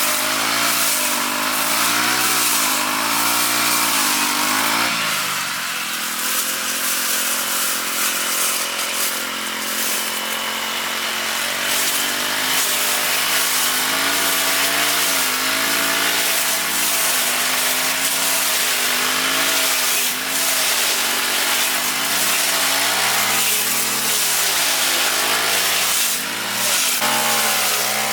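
Small petrol lawn mower engine running continuously under load, its pitch wavering up and down as it cuts, then holding steadier for several seconds.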